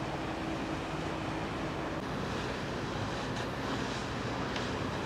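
Steady rumble and hum of a large cruise ship moving out through the channel, mixed with wind on the microphone. A steady hum fades out about two seconds in.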